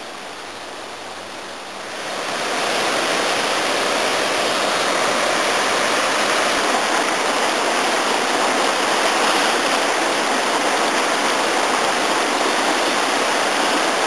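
Steady rush of fast-flowing water, which grows louder about two seconds in.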